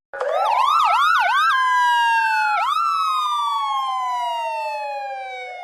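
Police car siren: after a split-second break it comes back rising, with three quick swooping chirps, holds high, then falls in a long slow wail that fades near the end.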